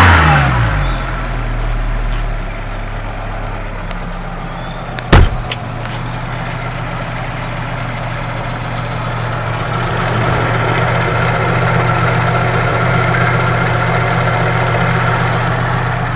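Fiat Seicento engine settling from a rev into a steady idle, with a constant high screech from the belt-and-alternator drive. The owner wonders whether the screech is shot alternator bearings, since a new fan belt and re-tensioning did not cure it. One sharp loud knock about five seconds in.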